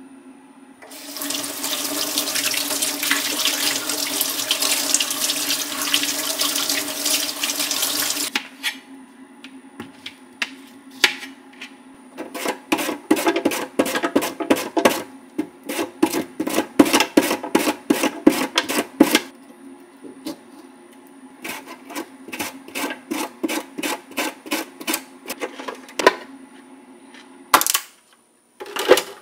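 Kitchen tap running into a sink for about eight seconds. Then a cucumber is cut: a few single knife strokes on a plastic cutting board, then runs of quick, even cutting strokes, about four a second, on a knife and a box vegetable slicer.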